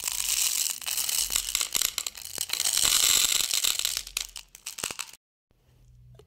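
Small round beads poured into a small clear dish: a dense rattle of many clicks that thins out and stops about five seconds in.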